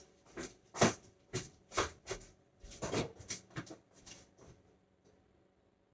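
A quick, irregular run of short knocks, taps and rustles from kitchen items being handled, the loudest just under a second in, dying away after about four and a half seconds.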